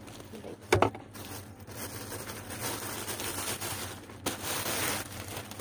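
Plastic courier pouch rustling and crinkling as it is handled and opened, with two sharp knocks about a second in and the rustling loudest near the end.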